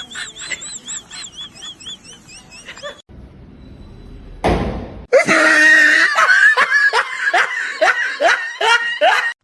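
Rapid high-pitched chirping squeaks, a short burst of noise, then loud high-pitched laughing in quick repeated rising bursts.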